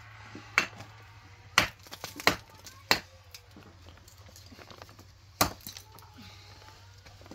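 Five sharp, hard knocks of masonry being struck, as a chunk of building block is chipped and broken to size by hand. Four come close together in the first three seconds and one more comes about five seconds in.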